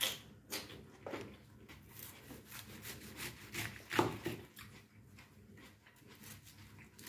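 Kitchen knife chopping napa cabbage on a cutting board: a quick, irregular run of crisp cuts through the leaves, each ending in a tap on the board, the loudest about four seconds in, then fewer cuts.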